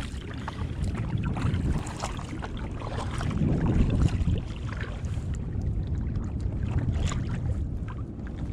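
Water sloshing around a sit-on-top fishing kayak with wind on the microphone: a steady low rumble that swells for a moment a few seconds in, with scattered light clicks and knocks.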